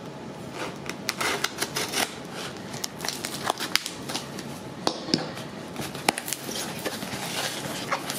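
Spyderco folding knife slitting packing tape on a cardboard box, then the cardboard flaps being pulled open: a run of sharp scrapes, clicks and crackles of tape and cardboard.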